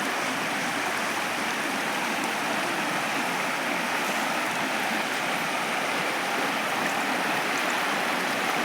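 River water flowing, a steady, even rushing noise.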